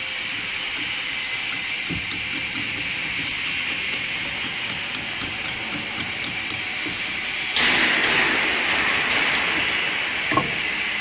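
Light metal clicks and taps of hand tools working on a pellet mill's ring die and roller assembly, over a steady hiss. About seven and a half seconds in, a loud hissing rush starts suddenly and fades over a few seconds.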